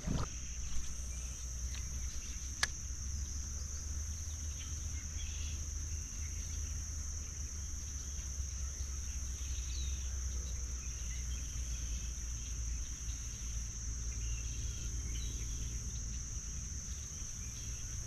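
Steady high-pitched chorus of insects such as crickets, unbroken throughout, over a low rumble, with a single sharp click a couple of seconds in.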